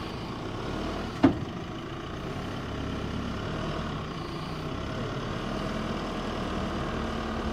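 Holden Colorado ute's engine idling steadily, with one sharp knock about a second in.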